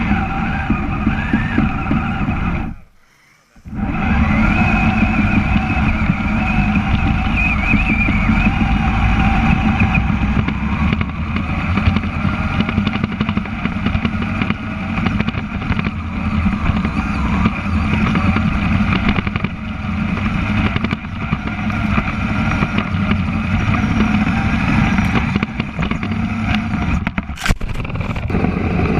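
Kyosho Blizzard FR radio-controlled snow cat driving, with the whine of its motor and gearbox rising and falling a little over the rattle and rumble of its tracks. The sound cuts out for under a second about three seconds in.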